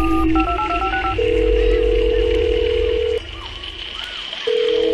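Electronic intro jingle: sustained synth tones over a deep bass, opening with a quick run of touch-tone telephone keypad beeps. The bass drops away for about a second past the middle, then comes back.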